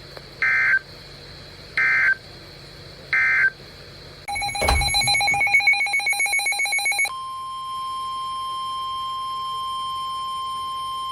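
Three short bursts of EAS data tones about a second and a half apart, the end-of-message code closing a flood warning. About four seconds in comes a rapidly pulsing, ringing electronic alert signal for about three seconds. It is followed by the steady, single-pitch NOAA Weather Radio warning alarm tone, which runs for about five seconds ahead of the next flood warning.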